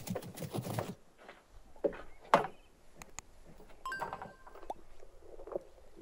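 Puppies scuffling and moving about in the first second, followed by scattered light knocks and clicks. A sharp knock about two seconds in is the loudest sound.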